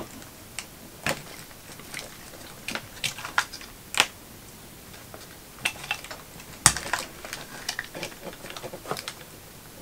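Irregular small plastic clicks and taps from a cable connector and housing parts being handled inside a DJI Robomaster S1's gimbal, with sharper clicks about four seconds in and again near seven seconds.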